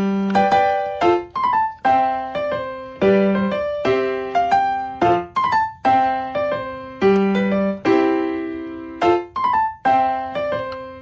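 Background piano music: a gentle keyboard melody of struck notes, each fading away, over a steady repeating pattern.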